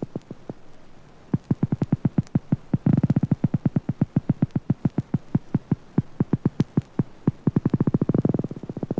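Bioelectric discharges of an electric catfish (Malapterurus electricus), amplified and played as sound: trains of sharp buzzy clicks at roughly ten a second, thickening into denser, louder volleys about three seconds in and again near the end. These are the discharges the fish gives off while hunting to flush prey from cover.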